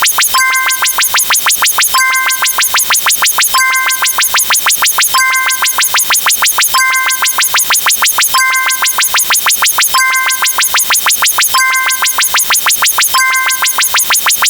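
A looped electronic sound effect: a fast, even run of sharp clicks, several a second, with a short high chime-like tone coming back about every second and a half.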